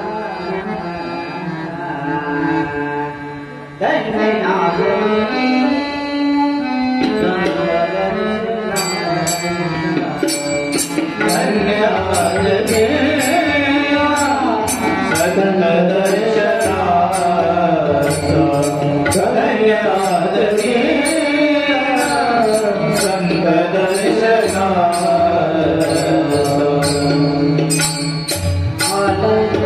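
Marathi devotional bhajan. It opens with steady held instrumental notes, then a man sings with a regular beat of small hand cymbals and drum from about nine seconds in.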